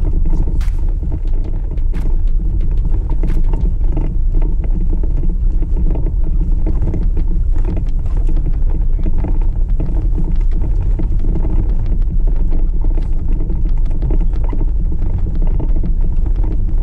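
4x4 vehicle driving over a rough off-road trail: a steady rumble of engine and tyres, with frequent short knocks and rattles as it bumps along.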